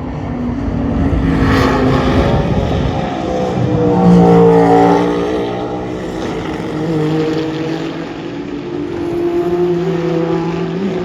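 Endurance race cars passing at speed. Their engine notes rise and fall in pitch as they go by, and the loudest pass comes about four seconds in.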